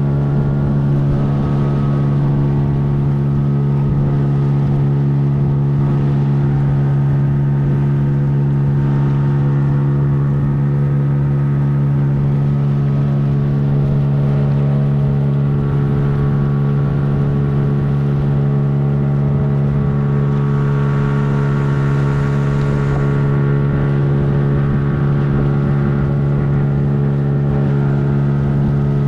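Boat motor running steadily, a constant drone that holds one pitch throughout.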